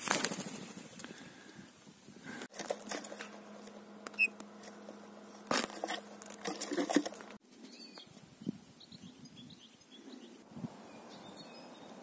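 Rustling and wing-flapping of small birds being handled and moving about in a cage, in several short cuts, with a few faint soft chirps in the last few seconds.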